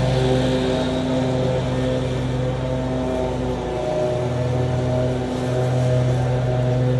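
Lawn mower engine running steadily, with background music of sustained notes that change every second or so.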